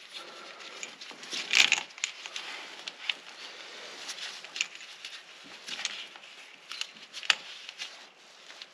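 Chain wrench being fitted and drawn tight around an engine oil filter: scattered metal clicks and rattles, with a louder scrape about a second and a half in.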